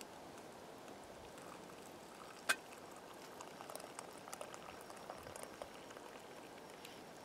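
Water poured from a small metal pot into a wooden kuksa cup, trickling and splashing faintly for the second half. A single sharp click about two and a half seconds in, just before the pour starts.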